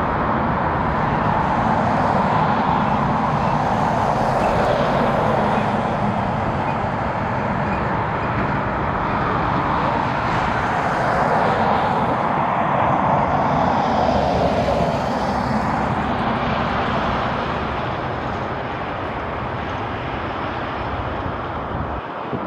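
Jet airliner engines, a loud steady rush that eases off slightly near the end.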